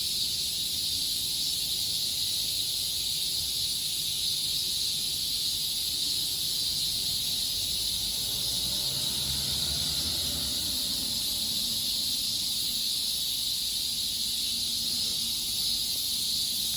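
Chorus of cicadas calling together as one steady, high, even drone with no breaks. A faint low rumble comes and goes about halfway through.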